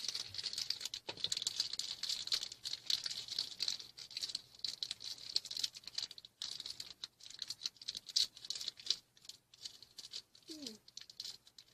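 Small plastic toy packaging being handled and opened by hand, an irregular crinkling and rustling with small clicks and rattles.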